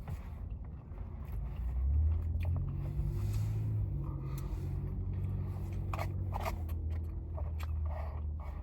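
A long, low, drawn-out burp starting about two seconds in and lasting several seconds, its pitch wavering. Short wet mouth clicks of eating come near the end.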